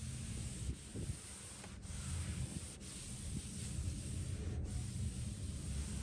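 Cloth rubbing back and forth over a hard countertop, a continuous scrubbing wipe.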